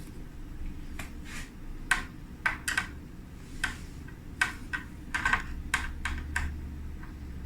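A series of about a dozen small, sharp clicks and taps at irregular intervals from handling computer parts as an M.2 SSD is fitted into its slot on a motherboard.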